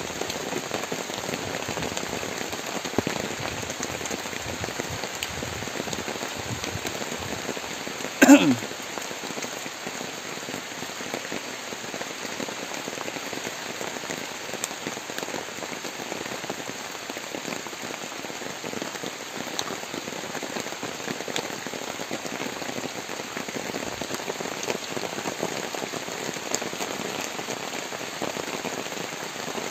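Heavy rain falling steadily on a plastic tarpaulin shelter and the surrounding orchard. A single brief knock stands out about eight seconds in.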